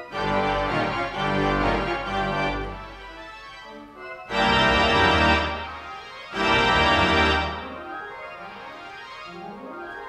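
Theatre pipe organ playing by itself from a Möller player roll: sustained chords over a deep pedal bass, swelling to two loud full chords about four and six seconds in, then dropping back to softer playing.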